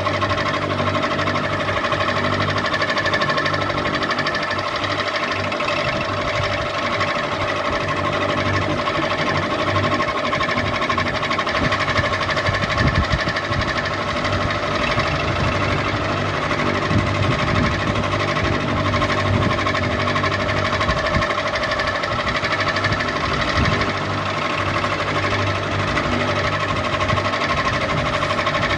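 Ceiling fan running steadily: a continuous motor hum with a constant whine, and an uneven low rattle underneath.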